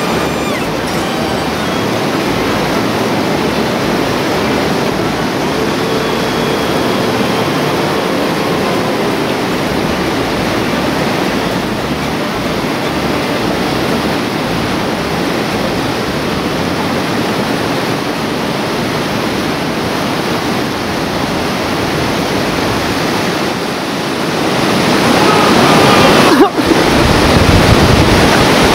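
Whitewater rapids of a river rushing steadily. The water noise grows louder about 25 seconds in, with a brief break in the sound just after.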